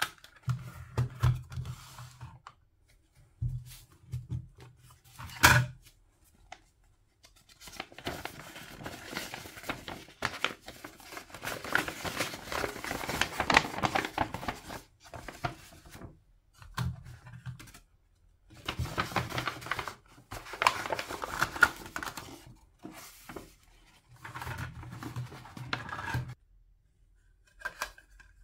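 Hands handling hard plastic toy food pieces, with light clicks and taps and one sharp click about five seconds in. Then a paper takeout bag is opened and handled, rustling and crinkling for several seconds at a time, in three stretches.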